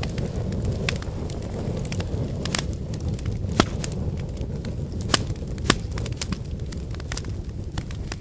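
Wood fire burning: a steady low rushing sound with scattered crackles and snaps, and three louder pops a few seconds in.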